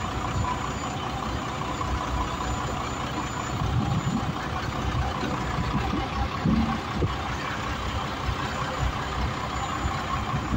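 Truck engine running steadily, driving the hydraulics of the truck-mounted crane as it lifts a light pole.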